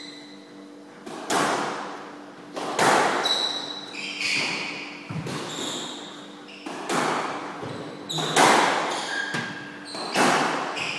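A squash rally: the ball cracks off rackets and the court walls about once every second and a half, each hit echoing around the court, starting about a second in. Rubber-soled shoes squeak briefly on the wooden floor between hits.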